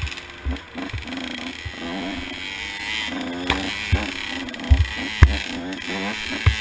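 Two-stroke engine of a big-bore KTM 85 SX dirt bike revving hard, its pitch rising and dropping again and again as the rider accelerates and shifts along a rough trail. Short heavy low thumps break in a few times, loudest near the five-second mark.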